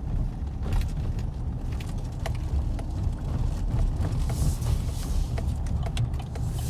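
Car interior while driving: a steady low road-and-engine rumble with small rattles and knocks. A brief hiss comes about four seconds in.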